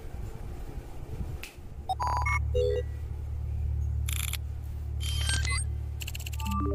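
Sci-fi hologram interface sound effects: a steady low electronic drone that starts about two seconds in, with short computer beeps and bleeps over it and several bursts of digital chirping as the display comes up.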